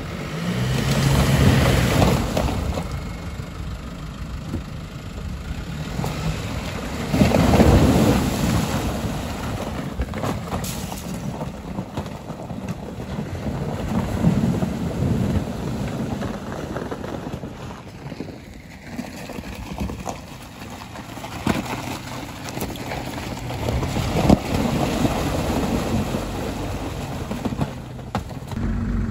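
Off-road SUVs, a Jeep Wrangler and then a Suzuki Vitara, drive through water covered in ice. Their engines run under load while the tyres break through the ice and splash, with crunching ice and a few sharp knocks. The loudest burst of splashing and crunching comes about seven seconds in.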